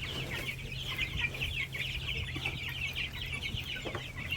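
A flock of about 80 young Black Australorp chicks peeping all at once, making a dense, continuous chorus of short, high, falling peeps.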